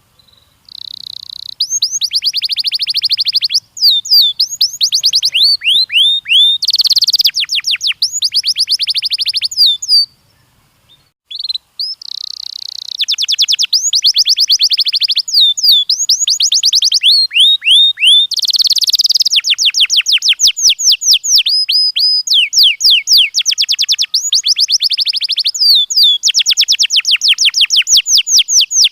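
Domestic canary singing: long phrases of fast, rolling trills and rapid repeated chirps, high-pitched, with a pause of about two seconds near the middle before the song resumes.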